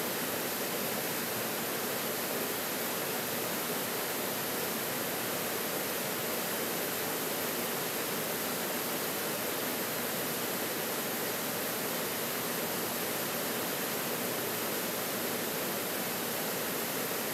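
Small waterfall dropping into a rocky pool: a steady, even rush of falling water that does not change.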